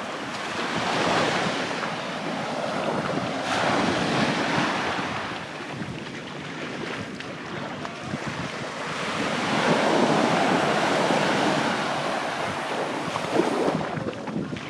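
Sea waves breaking and washing on a sandy beach, the surf swelling and falling back several times, with wind buffeting the microphone.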